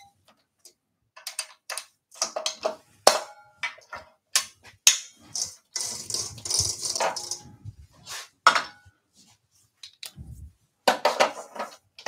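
Irregular metallic clicks, clanks and rattles of a steel jaw chuck being worked on a wood lathe with its chuck key, with a longer scraping rattle about six seconds in.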